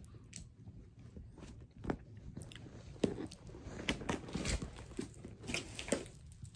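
Close handling noise: irregular crackles, rustles and taps as a phone is held and moved right against the microphone, with fabric shifting, getting busier in the second half.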